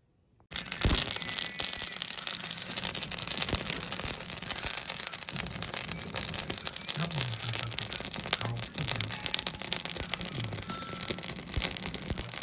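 Wood fire under a cooking pot crackling, a dense steady hiss full of small pops and snaps, starting about half a second in.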